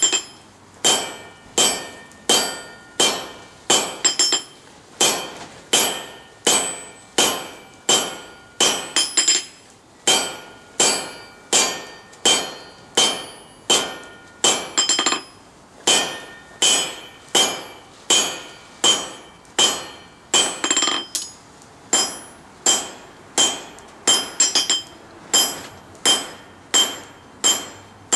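Blacksmith's hand hammer striking a red-hot bar of coil-spring steel on an anvil, steady blows about one and a half a second, each with a short metallic ring. The bar is being drawn down to a square tapered awl point. The blows stop near the end.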